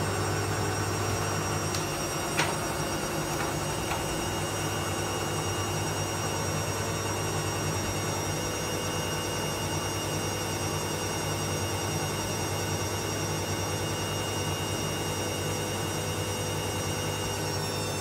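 Beko WM5122S washing machine spinning its drum in the interim spin between wash and rinse: a steady motor hum with a high whine, the whine shifting in pitch near the end as the drum speed changes. One sharp click about two and a half seconds in.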